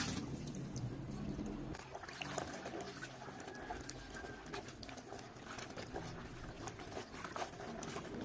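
Soaked rayon fabric being squeezed and kneaded by gloved hands in a basin of mordant solution: faint wet squelching with small irregular splashes and drips.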